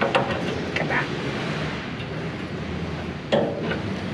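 Steady mechanical running noise with a low hum, with a few light metallic clicks and a louder knock a little over three seconds in, from a wrench and hands working a tailgate cylinder fitting.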